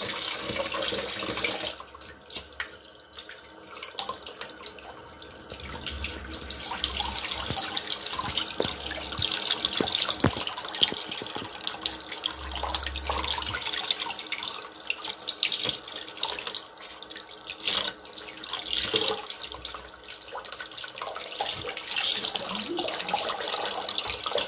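Kitchen tap running, water pouring over a wet cat and splashing into a plastic basin in the sink, rising and falling unevenly.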